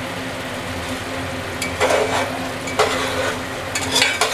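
Metal spatula stirring and scraping thick tomato chutney around a metal pot, over a steady sizzle as the chutney reduces and its last water cooks off. A few louder scrapes come in the second half.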